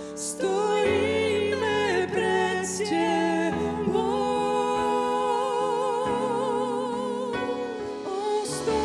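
Live gospel worship song from a band with singers: voices hold long notes with vibrato over sustained chords that shift every couple of seconds.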